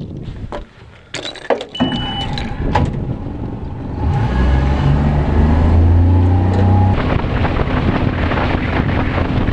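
Suzuki outboard motor running as the boat is throttled up and under way. It comes in loud and steady about four seconds in, after a few knocks, clatter and a short high beep.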